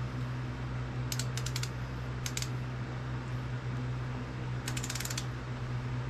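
Ratchet of a click-type torque wrench clicking in three quick runs as a cylinder head bolt on a Briggs & Stratton OHV engine is tightened, over a steady low hum.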